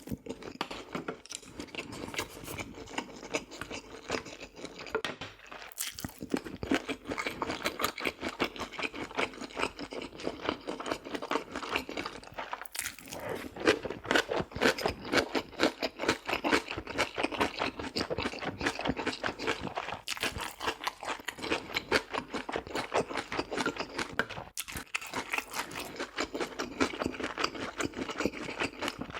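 Close-miked chewing and crunching of food, a dense run of quick crisp crunches with short breaks about 6, 13 and 25 seconds in.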